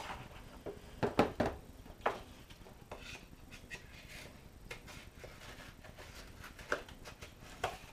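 Moulded paper-pulp egg tray being handled and lifted off a plastic table: a few soft knocks and scrapes, the loudest cluster about a second in.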